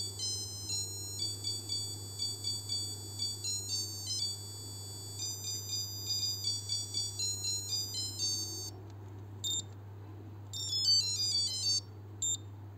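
The piezo buzzer of a 1980 Casio H-104 melody alarm watch (module 82) plays its electronic melody, a tune of thin, high-pitched beeping notes. The tune stops about nine seconds in. After a short pause come one short beep, a quick run of notes and another short beep.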